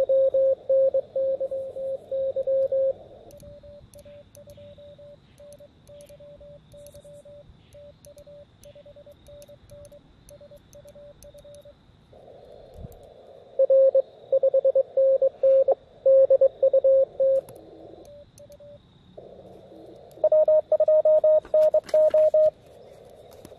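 Morse code (CW) tones from an Elecraft KX2 transceiver tuned to the 40 m band during a contest exchange. Loud keying over narrow-filtered receiver hiss comes at the start, in the middle and near the end, with fainter, evenly keyed code between.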